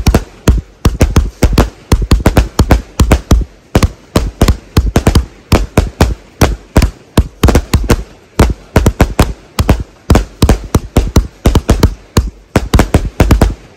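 Astroboy Fireworks 'Dempsey Roll' 81-shot fireworks cake firing in rapid succession: a string of sharp bangs, several a second, from shells launching and bursting. There are two brief lulls, about four seconds in and near the end.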